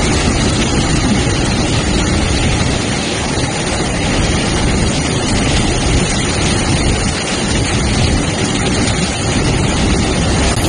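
Freight train rolling through floodwater that covers the tracks, its wheels churning up spray: a loud, steady rush of water and train noise.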